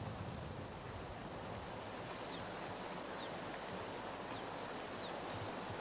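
Steady outdoor hiss with short, high, falling chirps repeating about once a second from about two seconds in.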